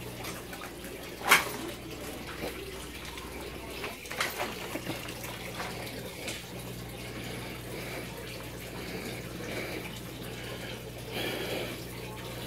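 Steady running and trickling water from an aquaponics system over a low, even hum, with a sharp knock about a second in and a few light clicks a few seconds later.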